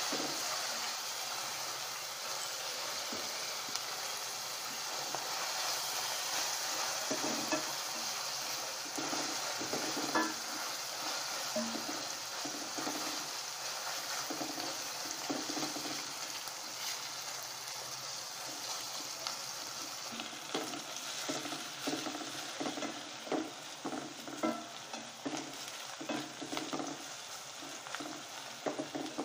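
Chopped onions and whole spices (bay leaf, cinnamon, cloves, cardamom) sizzling steadily in hot oil in a pan as they brown. A spatula stirs and scrapes against the pan now and then, more often in the second half.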